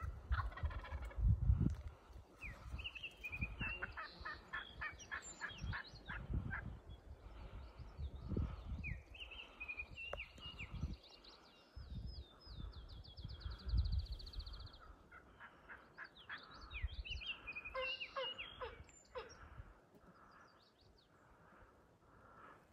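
Wild turkey calling amid songbirds singing, with a fast high trill about halfway through. Low rumbles of wind gust on the microphone throughout.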